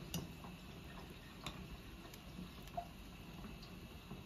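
Faint bubbling of a large pot of water at a boil with duff dumplings and cassava in it, with a few scattered small pops and clicks.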